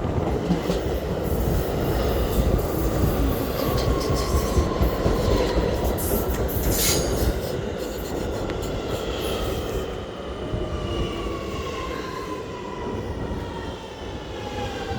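R211A subway train running past at speed with heavy rumble, wheel rattle and squeal, and a sharp clatter about seven seconds in. In the second half its traction motors give a whine that falls steadily in pitch as the train brakes to a stop.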